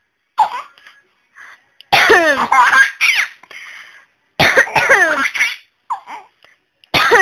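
A woman coughing again and again while a four-month-old baby laughs out loud in response, in three loud bursts about two and a half seconds apart.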